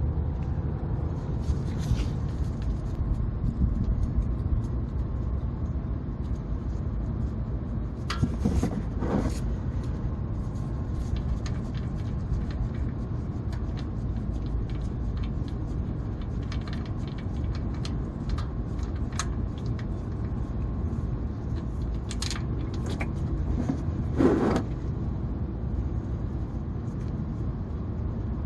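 Steady low background rumble with scattered light clicks, and a few brief louder scrapes or knocks from tools and parts being handled.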